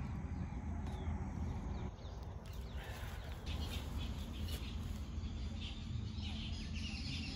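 Birds chirping and calling, starting a few seconds in and getting busier toward the end, over a steady low rumble.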